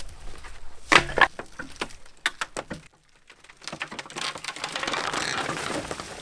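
Wooden boards knocking and clattering as a wooden outhouse is pulled apart: a few sharp knocks about a second in, then a stretch of rustling, scraping noise near the end.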